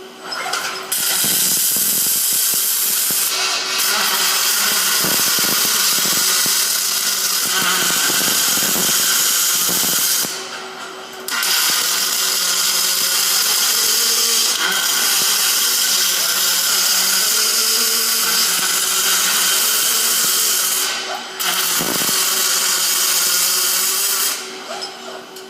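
MIG welding arc crackling and hissing in three long runs, breaking off briefly about ten seconds in and again about twenty-one seconds in, with a steady hum underneath.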